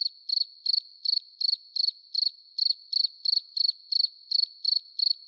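Cricket chirping, a steady run of evenly spaced high chirps, nearly three a second. It is a dubbed-in 'crickets' sound effect for an awkward wait while nothing happens.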